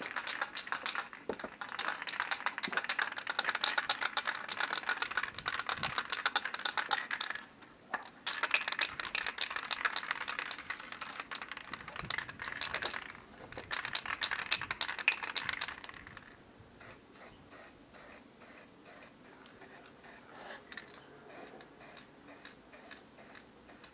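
Aerosol can of anti-rust paint being shaken, its mixing ball rattling rapidly in three bouts over roughly the first sixteen seconds. After that only faint scattered clicks remain.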